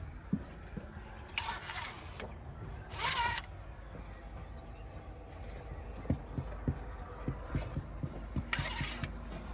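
Diesel engine of working earthmoving machinery running steadily, with three short hisses and a run of light knocks in the last few seconds.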